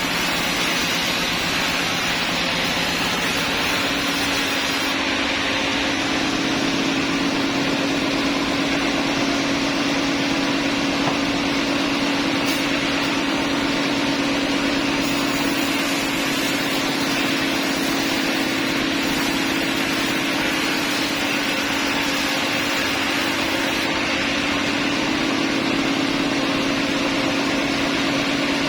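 Sawmill machinery running with a steady mechanical drone; its hum steps up in pitch about three to four seconds in and then holds.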